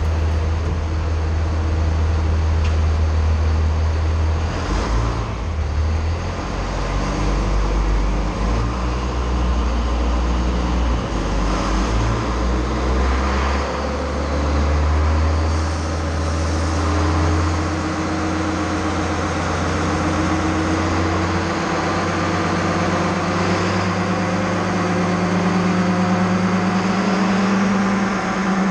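Cummins inline-six turbo diesel in a Ram 3500 running hard on a chassis dynamometer, its driven wheels spinning the rollers. The engine note changes in steps several times, then climbs steadily over the last several seconds of the pull.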